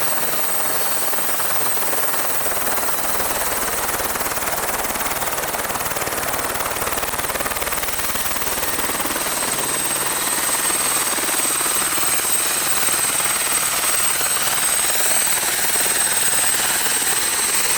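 Twin-engine Airbus AS355N helicopter running during its landing: steady rotor and turbine noise with a constant high turbine whine, growing a little louder about ten seconds in.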